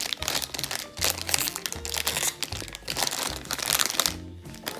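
Plastic bag around a blind-box mini figure crinkling as it is handled and pulled open, stopping about four seconds in. Soft background music plays under it.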